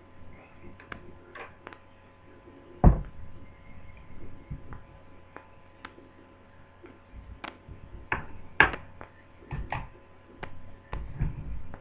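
Irregular clicks and knocks of laptop parts and tools being handled during reassembly, with a loud knock about three seconds in and another near nine seconds.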